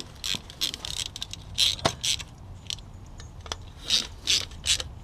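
Socket ratchet clicking in short, irregular strokes while running the rear sprocket nuts down onto their studs until they seat.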